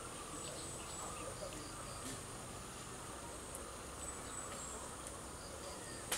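Steady high-pitched insect chirring, like crickets, over faint outdoor background. A few faint clicks come through it, with one sharp click near the end.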